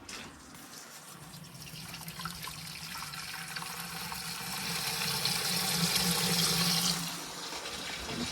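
Water rushing out of a hydronic boiler system's piping as the system pressure is let down; the flow grows steadily louder, then eases a little near the end.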